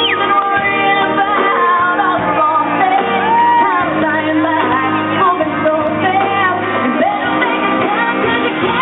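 Woman singing a slow pop-country ballad live with a band, her voice gliding and holding long notes over steady guitar and backing chords.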